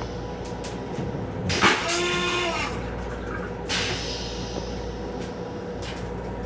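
Toilet in a Metro-North M7 railcar restroom flushing: a short loud rush about a second and a half in, a brief falling whine after it, and a second shorter rush about two seconds later, over the steady hum of the moving train.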